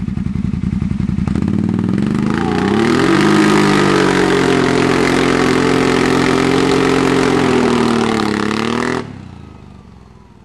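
Arctic Cat ATV engine running at low revs, then revved up about two seconds in and held high as its rear wheels spin on the pavement. The revs fall away about nine seconds in and the sound fades out.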